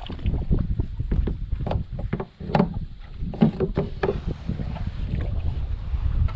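Strong wind buffeting the microphone as a low, steady rumble, with frequent short knocks and splashes of water against a kayak.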